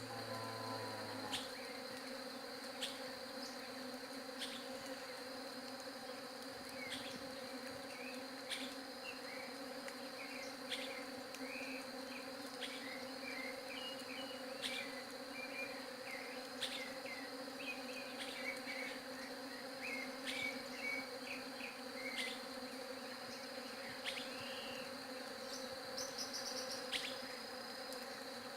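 Many honeybees buzzing in a steady, unbroken drone. Short high chirps come and go through the middle, over a thin steady high whine.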